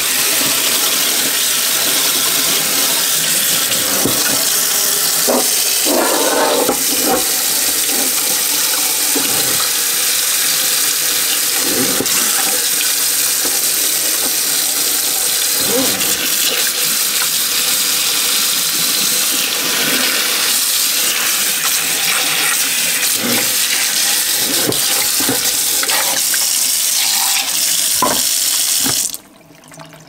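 Tap water running in a steady stream and splashing onto a Synology NAS enclosure in a sink. The sound cuts off suddenly about a second before the end.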